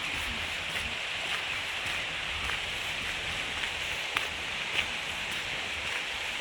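A steady hiss of outdoor noise with a few light, sharp ticks scattered through it.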